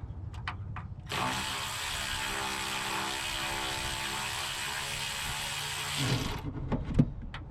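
A cordless power driver with a 3/16 Allen socket runs steadily for about five seconds, backing a throttle-lever bolt out, with a couple of sharp metal knocks near the end as it stops.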